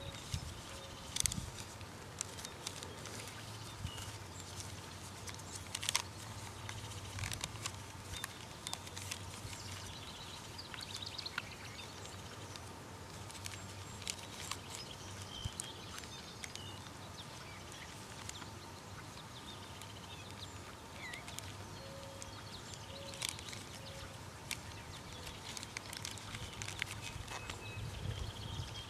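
Quiet outdoor ambience: a steady low rumble with scattered small clicks and ticks, and a few faint short calls from animals.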